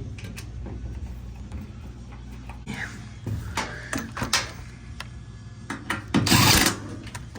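Sheet-metal top panel of a front-load washer being handled and fitted back on: scattered clicks and knocks, then a loud scraping slide lasting about half a second around six seconds in, over a steady low hum.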